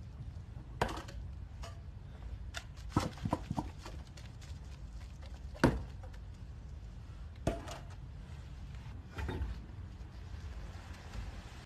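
Car tyre rolling slowly onto granule-dusted kitchen scrub sponges: a handful of sharp, separate crunching cracks, the loudest about halfway, over a low steady rumble.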